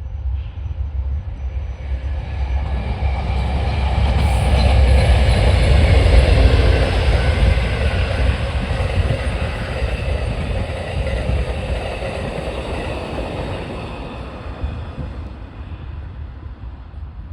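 A train passing, growing louder to a peak about six seconds in and then fading away, with a deep rumble underneath the rail noise throughout.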